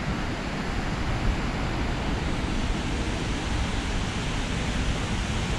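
Steady rush of spring water flowing out, an even, unbroken wash of water noise.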